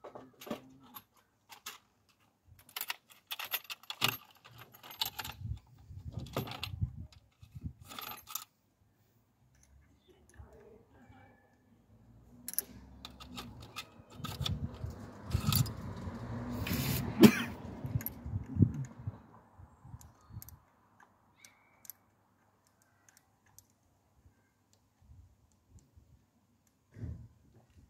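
Metal tools and parts clinking and rattling as hands work in a car's engine bay: scattered clicks at first, then a busier stretch of clattering and rustling in the middle.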